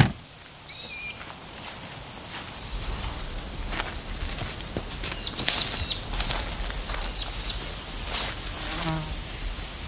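Steady high-pitched insect trill in dry grassland, with a few short high chirps and scattered faint clicks. A low rumble comes in about three seconds in.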